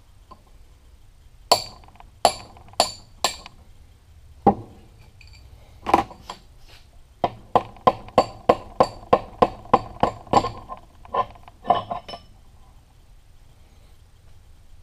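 Hammer striking a brass drift punch held against a lathe's quick-change gear box to drive a part out, each blow a sharp metallic clink. Four spaced strikes come first, then a few single ones, then a quick run of about four blows a second, ending about twelve seconds in.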